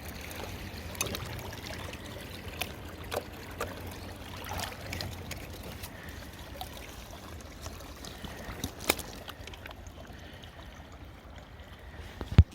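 Water trickling and splashing steadily, with scattered small knocks like stones or gravel striking, and one sharp, loud knock near the end.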